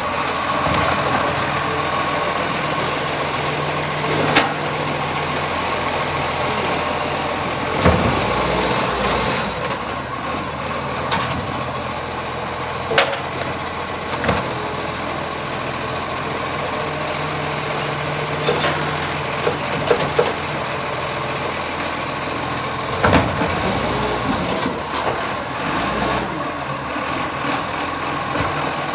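Iveco Acco side-loading recycling truck running at idle while its automated hydraulic arm grips and lifts wheelie bins. The engine hum swells twice, and sharp clanks of the bins and arm come about six times.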